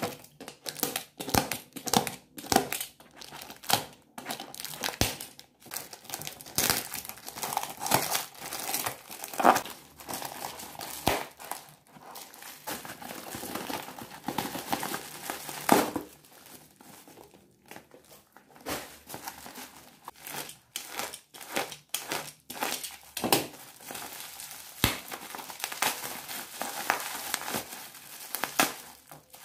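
Packaging being torn open by hand: clear plastic wrap crinkling and cardboard tearing as a box is cut and pulled apart, then black bubble wrap crinkling as it is handled. Irregular crackles and tears, quieter for a few seconds past the middle.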